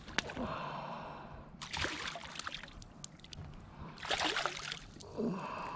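A hooked crappie splashing at the water's surface as it is drawn to the boat on a fly line, in two bursts of splashing, about two seconds in and again about four seconds in.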